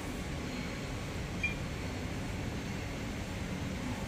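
Steady hum of a coordinate measuring machine running an automatic measuring cycle, mixed with room ventilation, with one short high beep about one and a half seconds in.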